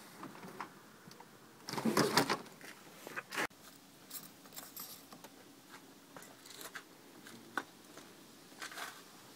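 Fabric rustling and plastic clicks as the folded soft top and rear section of a Smart Fortwo 450 cabrio are handled. The loudest burst comes about two seconds in, with another sharp one around three and a half seconds, then scattered small clicks.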